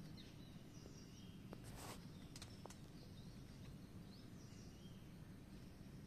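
Near-silent outdoor ambience: a steady low background rumble with faint, short bird chirps here and there. There are a few soft clicks and a brief rustle about two seconds in.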